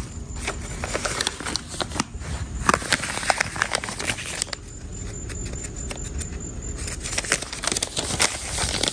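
Plastic wrapping and a folded paper instruction manual crinkling and rustling as they are handled, in irregular crackles with a quieter stretch of a couple of seconds midway.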